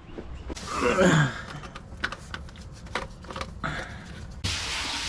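Scattered clicks, knocks and rustling from a doormat being handled and dragged aside, then a steady hiss starts abruptly near the end.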